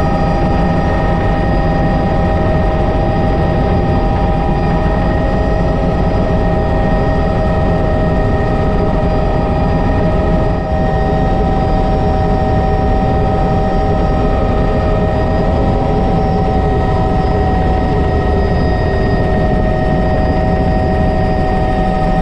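Bell 206 JetRanger helicopter heard from inside the cockpit: the steady whine of its Allison 250 turboshaft turbine over the low rumble of the rotor. The whine's pitch shifts slightly, with a brief dip in level, about halfway through.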